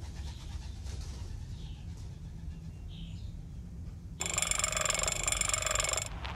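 Wind-up gramophone's side crank being turned to wind its spring motor: about four seconds in, a loud whirring, ratcheting rasp starts abruptly and runs for about two seconds before cutting off, over a low steady hum.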